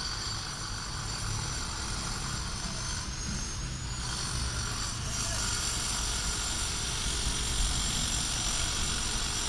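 Steady construction-site background noise: a low rumble under a hiss, with a faint thin high whine rising briefly about three to four seconds in.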